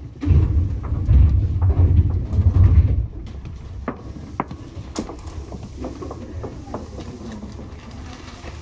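Seibu 2000 series electric train running, heard from inside the car above the line breaker: a heavy low rumble for about three seconds that cuts off suddenly, then quieter steady running noise with scattered clicks and knocks.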